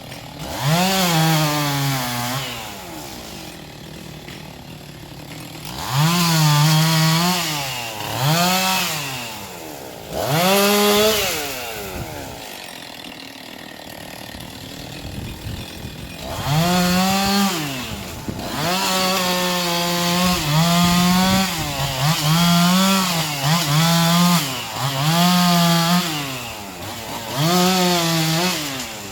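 Chainsaw engine revving up and down in repeated bursts while bucking logs into lengths, dropping back to idle twice, a few seconds in and around the middle.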